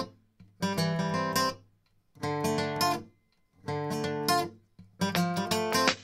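Background music: acoustic guitar strumming chords in short phrases about every one and a half seconds, with brief silent gaps between them.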